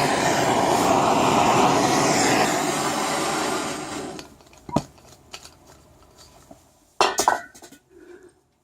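Handheld gas torch burning with a loud, steady rushing hiss that dies away about four seconds in. After it come a few sharp metallic clicks and clinks, with a quick cluster near the end.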